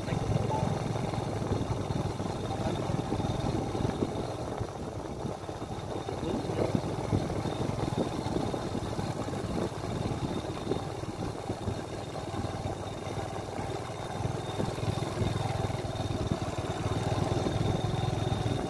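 Small motorbike engine running steadily while riding along.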